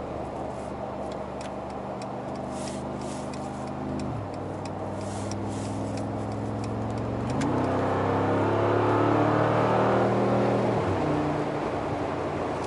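Mercedes-AMG G63's twin-turbo V8 heard from inside the cabin at motorway speed: a steady engine hum, then about seven seconds in the pitch jumps up and the engine grows louder as the automatic kicks down and the SUV accelerates, before the note drops back near the end as it shifts up.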